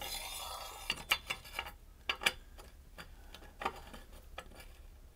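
Long brass stem of a Mansfield wall hydrant being slid into the hydrant body: a brief scrape at first, then a series of light, uneven metallic clicks and taps as it is pushed in.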